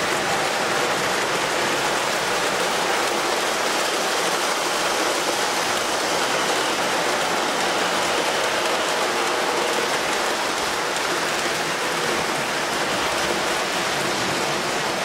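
O gauge three-rail model passenger train rolling along the track: wheels on rail give an even, steady rushing noise.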